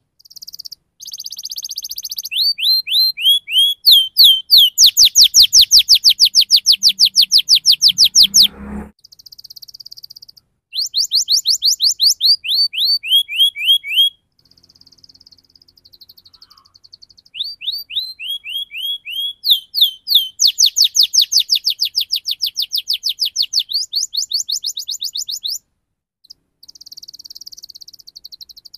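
Domestic canary singing in fast rolling trills: long runs of rapidly repeated, down-sweeping high notes in several phrases, with brief breaks between them.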